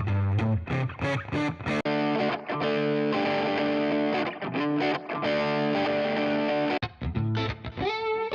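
Distorted electric guitar played through a TONEX MAX pedal's drive preset. It starts with a chugging low riff, changes to ringing sustained chords about two seconds in, and has a note bent upward near the end.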